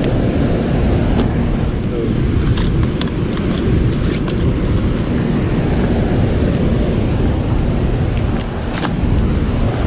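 Steady rushing roar of water pouring over a dam spillway, with a few light clicks scattered through it.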